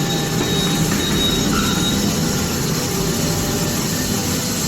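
Steady mechanical running noise of tire-shop machinery, with a thin high squeal in the first two seconds.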